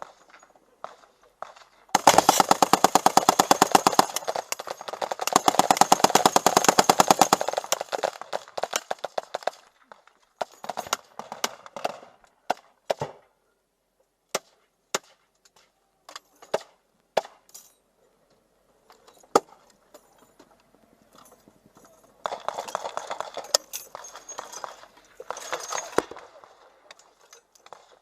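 Machine-gun fire: two long bursts of rapid, evenly spaced shots, then scattered single shots, then another long burst near the end.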